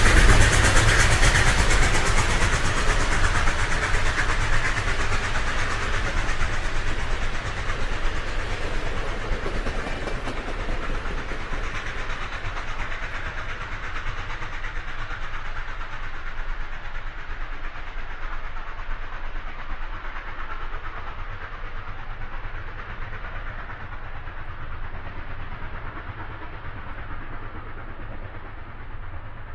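A rushing, rumbling noise that slowly fades away, its higher sounds dying off first as it recedes.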